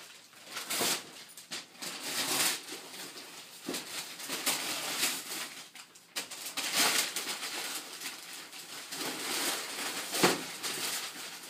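Wrapping paper tearing and crinkling in irregular bursts as a large gift box is unwrapped by hand.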